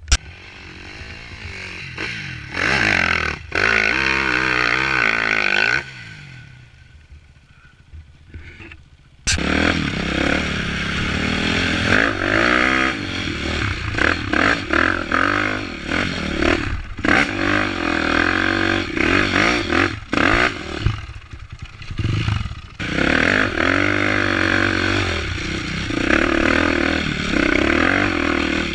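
Enduro motorcycle engine revving up and down under throttle as the bike is ridden over rough dirt. It drops quieter for a few seconds, then comes back suddenly and runs loudly with repeated revs for the rest of the time.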